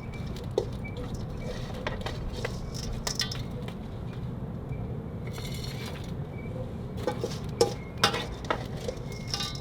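Small clicks and clinks from handling plant pots and gritty potting soil, with a short rustle about five seconds in and a run of louder knocks near the end, over a steady low wind rumble on the microphone.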